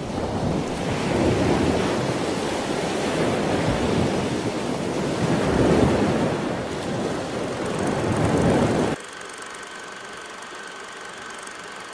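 Ocean surf: waves washing in repeated swells of noise, cutting off suddenly about nine seconds in. A faint steady hum with a thin high tone follows.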